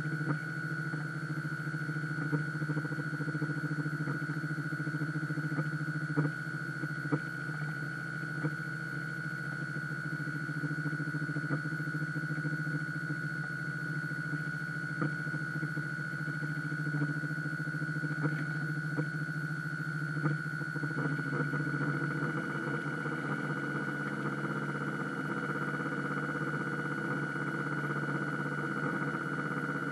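Drive motor of a radio-controlled model boat whining steadily, heard from on board, with a few light clicks. Its note shifts about two-thirds of the way through, as with a change of throttle or course.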